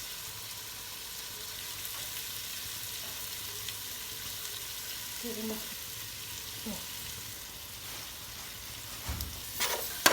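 Food frying in oil in a pan, a steady sizzle, with a few sharp knocks near the end.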